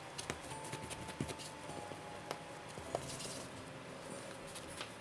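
Hands shaping balls of bread dough and setting them down on a baking mat: a scattering of light taps and pats, over soft background music with a few long held notes.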